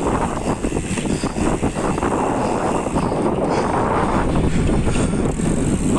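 Wind buffeting the microphone of a road bike riding fast, over the steady rumble of its tyres on a concrete road.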